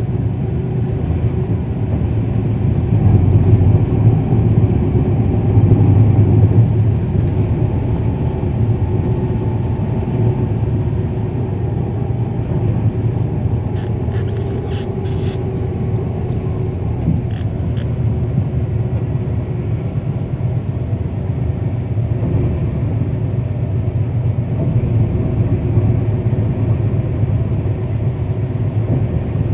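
Transit bus with a Cummins ISL9 diesel engine and ZF Ecomat automatic transmission, heard from on board while underway: a steady low engine rumble that swells for a few seconds near the start. A brief cluster of clicks or rattles comes about halfway through.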